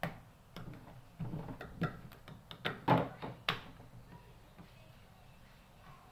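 A rolling pin and hands working a piece of bread dough on a worktop: a run of soft knocks and taps over the first three and a half seconds, the loudest about three seconds in, then only faint handling.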